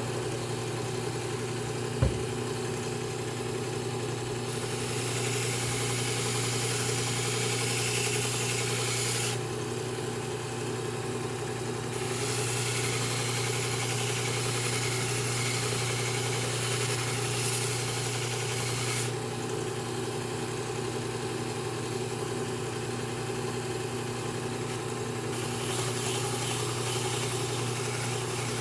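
Belt sharpening machine running with a steady motor hum, while a garden-tool blade is pressed to the abrasive belt in three grinding passes, each several seconds long, adding a hiss of metal being ground. A short click sounds about two seconds in.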